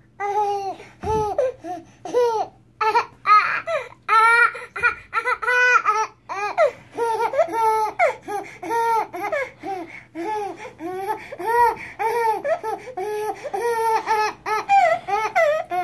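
A dog howling in a long run of short, rising-and-falling woos, several a second, with a baby laughing along.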